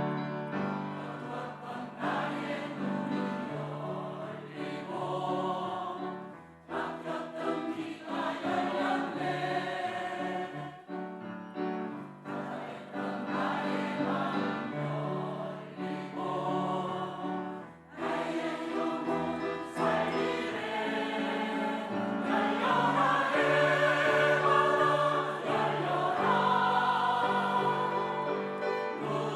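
Church choir singing an anthem with accompaniment, in phrases with short breaks about a third of the way in and again past the middle, swelling louder in the last third.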